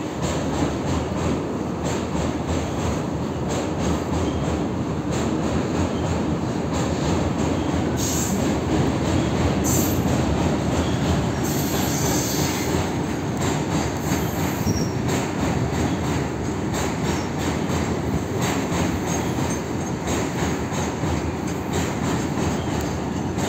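Freight train wagons rolling past steadily with a rhythmic clickety-clack of wheels over rail joints. Brief high-pitched wheel squeals rise out of it several times around the middle.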